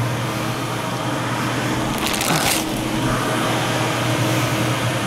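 HEPA laminar flow hood's blower fan running with a steady hum and rush of air. A brief rustle about two seconds in.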